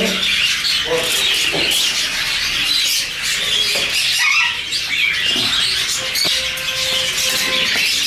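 Many caged parrots chirping and squawking at once: a dense, steady high chatter with a few louder squawks standing out.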